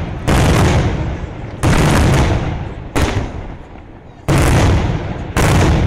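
Daytime aerial fireworks shells bursting: five loud bangs a little over a second apart, each dying away over about a second in a rumbling echo.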